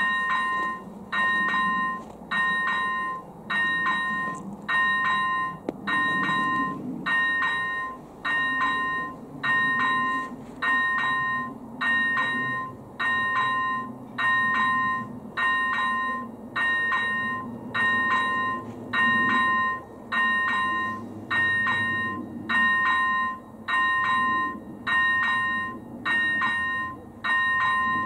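AŽD ZV-01 electronic level-crossing bell ringing about once a second, each stroke a multi-tone chime. It is sounding the crossing's warning that a train is approaching.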